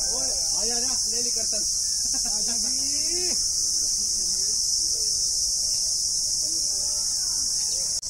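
A steady, high-pitched insect drone, with faint voices of people talking underneath.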